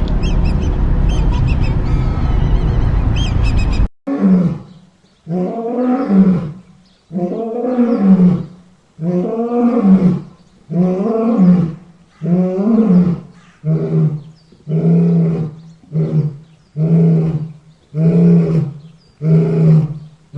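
A loud, steady rumbling noise cuts off abruptly about four seconds in. A deep animal roaring bout follows, typical of a lion: about thirteen calls roughly a second apart, the first ones longer and rising and falling in pitch, the later ones shorter grunts.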